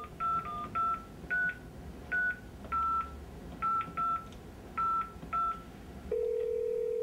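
A cordless phone's keypad dialing a number in touch tones: about eleven short beeps, irregularly spaced. About six seconds in, a long steady tone comes on the line.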